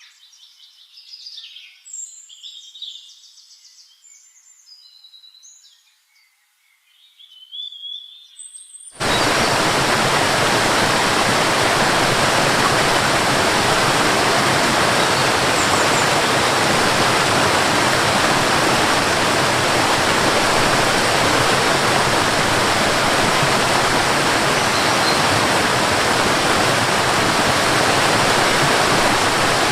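Songbirds chirping and calling for about nine seconds, then an abrupt cut to the loud, steady rush of falling water.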